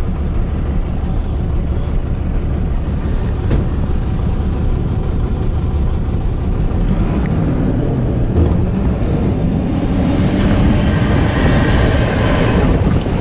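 Rear-loader garbage truck running, a steady low drone, with wind rushing over the chest-mounted microphone at its rear step; the sound grows fuller about ten seconds in.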